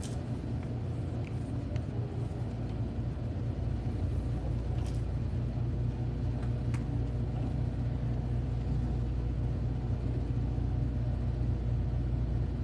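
Steady low rumble and hum of room noise, growing a little louder a few seconds in, with a few faint clicks.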